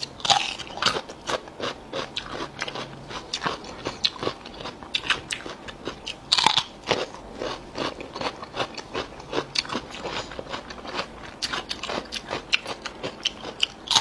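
Fresh cucumber bitten and chewed: crisp snapping crunches with steady crunchy chewing between, the two loudest bites near the start and about halfway through.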